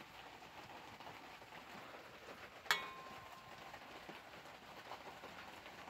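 Faint steady room hiss, broken about halfway through by a single sharp click that rings briefly with a clear tone before fading.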